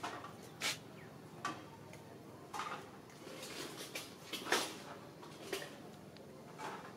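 Scattered short clicks and crackles, about six of them at uneven intervals, the loudest a little past the middle, over a faint steady hiss.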